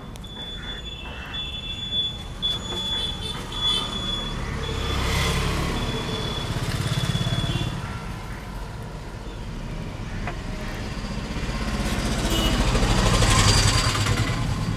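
Motor vehicles passing on a road: a low engine rumble swells twice, the louder pass near the end.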